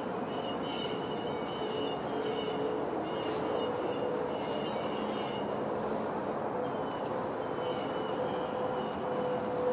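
Outdoor background: a steady hum and rush, with small birds giving short, repeated high chirps over it.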